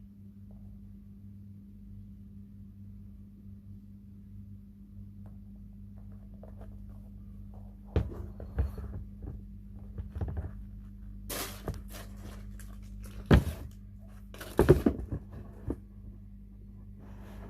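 Handling noises from sneakers being picked up and set down: a few knocks and thuds with short rustling bursts starting about halfway through, over a steady low hum.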